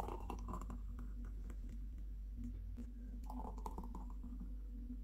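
Thick milkshake being poured from a jug into glasses: soft pouring sounds near the start and again past the middle, with scattered light clicks over a steady low hum.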